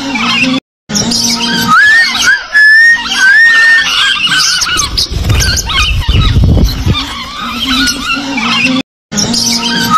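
A flock of lovebirds chattering: many shrill, overlapping chirps and squeaks with short gliding whistles. The sound cuts out for an instant near the start and again near the end.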